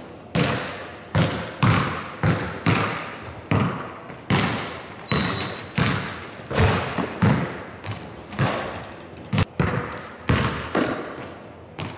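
Basketball bouncing on a hardwood gym floor: a string of irregular bounces, one or two a second, each echoing in the large hall. A brief high squeak about five seconds in.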